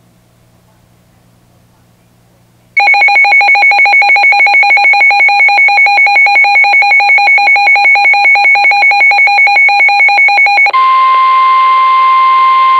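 Weather radio going off: after a faint hum, its alert alarm starts about three seconds in, a loud multi-pitched beep pulsing several times a second. About eight seconds later it gives way to the steady 1050 Hz NOAA Weather Radio warning alarm tone, which signals that a warning, here a severe thunderstorm warning, is being broadcast.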